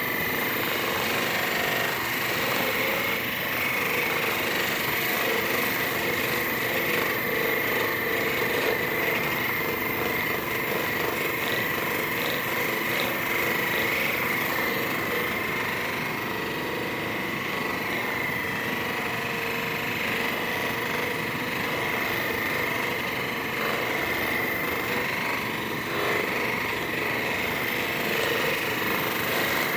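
Handheld electric percussion massager running steadily against the back muscles, a continuous buzzing with a steady motor whine.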